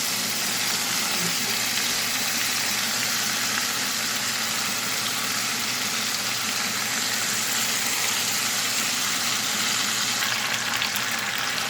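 Tandoori chicken with its yogurt and honey marinade sauce poured over it, sizzling steadily in a hot cast iron pan as the sauce cooks down.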